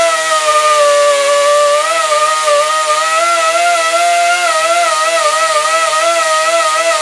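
Air-powered die grinder whining continuously as it grinds into a steel worm gear. Its pitch sags and wavers up and down as the tool is loaded against the metal.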